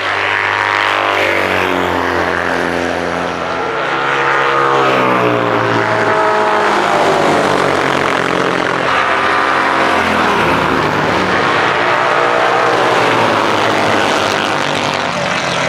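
Classic racing sidecar outfit engine running hard at race speed, its pitch climbing and falling several times as the revs rise and drop through gear changes.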